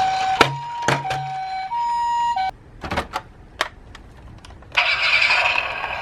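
Japanese-style ambulance siren: a two-note hi-lo electronic tone alternating about every 0.6 s, cutting off abruptly about two and a half seconds in, with a few sharp clicks. Near the end a steady rushing noise sets in.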